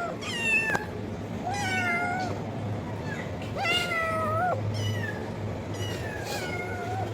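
A cat meowing repeatedly: about four separate meows, each under a second and bending in pitch, over a steady low hum.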